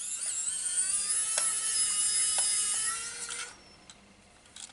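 Xiaomi Wiha electric precision screwdriver's small motor running as it spins a screw out, a high-pitched whine that rises in pitch briefly at the start, holds steady, and stops after about three and a half seconds, with a couple of faint clicks along the way.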